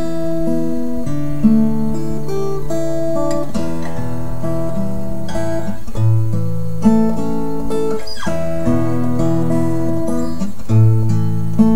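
Background music: an acoustic guitar playing a steady run of plucked notes, each left to ring.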